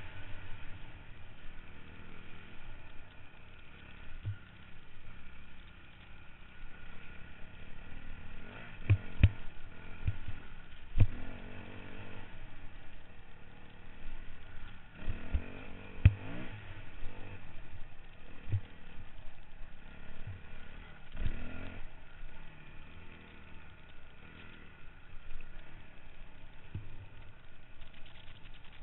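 Off-road motorcycle engines running and revving, with a few sharp knocks and thumps along the way.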